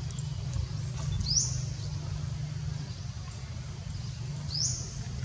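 A bird calling twice, each call a short rising chirp about three and a half seconds apart, over a steady low rumble.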